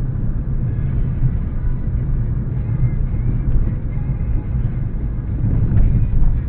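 Steady low rumble of a car's engine and road noise inside the cabin while driving, picked up by the dash cam's built-in microphone, which sounds muffled and dull.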